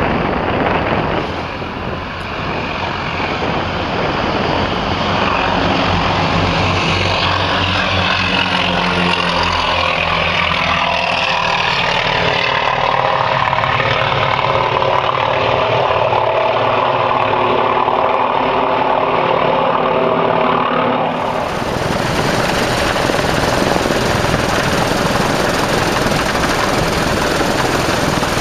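Piston aircraft engine running steadily, heard from inside the aircraft as it taxis, with wind on the microphone. About two-thirds through, the sound changes abruptly to a steadier hiss.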